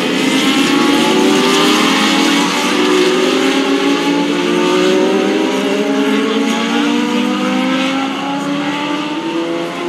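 Several Legends race cars with their Yamaha motorcycle engines running at speed on the track, their overlapping engine notes rising in pitch as they accelerate.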